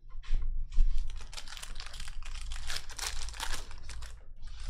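Hands rapidly handling a stack of Donruss Optic trading cards: a quick, irregular run of dry clicks and slides of card against card.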